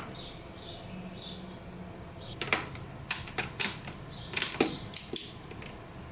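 Sharp metallic clicks of a wrench and socket as the cylinder head bolts are tightened to torque, about seven irregular clicks in the second half.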